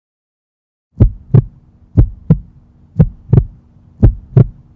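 Heartbeat sound effect: about a second of silence, then four deep lub-dub double beats, about one a second, over a faint steady hum.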